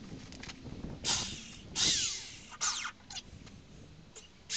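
Power drill run in three short bursts, each falling in pitch as it winds down, drilling holes for the door hinges.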